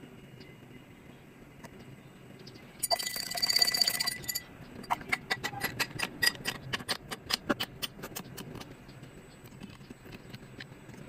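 Ice cubes clinking: a short ringing rattle about three seconds in, then a quick run of sharp clicks as cubes drop into a tall glass of green milk drink.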